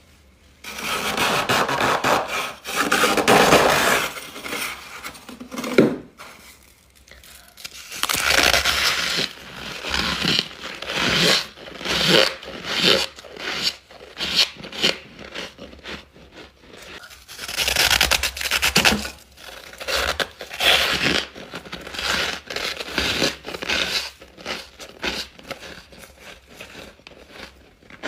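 Close-miked biting and chewing of chunks of freezer frost ice, a squeaky, crackling crunch. There are a few longer crunching bites, then steady chewing strokes at about one a second.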